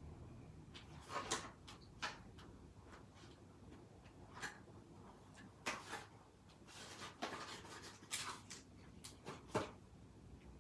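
Small cardboard box being opened by hand and a paper stick sachet drawn out, giving a scatter of short crinkles and scrapes.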